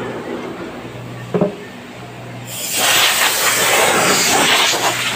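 A single knock, then about halfway through a loud, steady hiss of escaping air lasting a few seconds, over a low machine hum.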